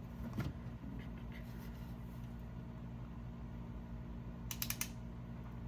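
Hand wire crimper clicking as its handles are squeezed on a terminal: a quick run of about five ratchet clicks about four and a half seconds in, over a steady low hum.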